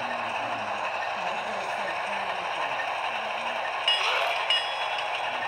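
Model train running along the track: a steady rolling rattle of the cars' wheels and the locomotive's motor, with two brief higher tones near the end.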